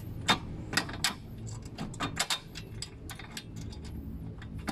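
Irregular metallic clicks and taps as a bolt and nut are fitted by hand through the lower bracket of a car's front strut. The sound comes in short separate ticks over a low steady hum, with the sharpest click about a third of a second in.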